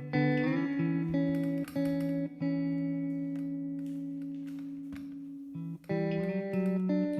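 Background music of pitched notes with sharp starts. A chord rings and slowly fades over about three seconds in the middle, then new notes come in near the end.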